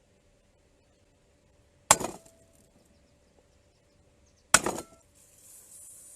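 Two sharp blows on metal, about two and a half seconds apart, each leaving a short ringing tone. About five seconds in, a steady high hiss begins.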